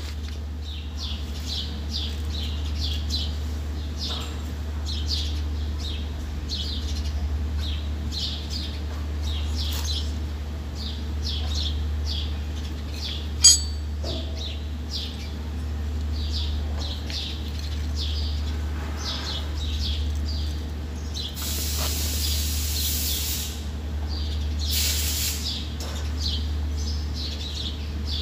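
Small birds chirping over and over above a steady low hum. A single sharp click sounds about halfway through, and two short bursts of hissing come near the end.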